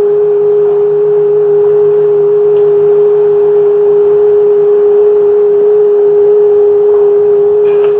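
Loud, steady electronic tone holding one pitch without a break, with a few faint ticks near the end.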